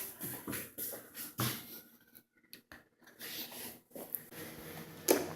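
Dog playing with a toy: irregular scuffling and rubbing noises, with a sharp knock about five seconds in.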